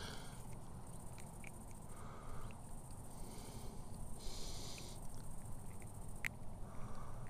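Faint handling of a freshly caught fish being unhooked by hand: small scattered clicks and rustles, one sharper click about six seconds in, over an outdoor background with several short hissing bursts.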